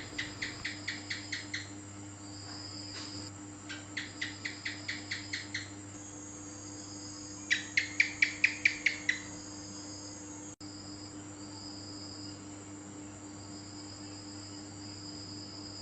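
Gecko calling in three rapid series of about ten sharp chirps each; the last series, about halfway through, is the loudest. Insects trill steadily in the background.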